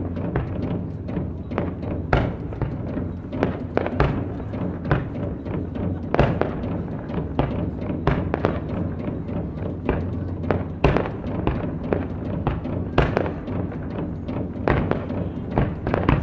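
Live Japanese taiko drumming mixed with the pops of fireworks bursts: a dense, irregular run of sharp strikes, several a second, over a steady low background.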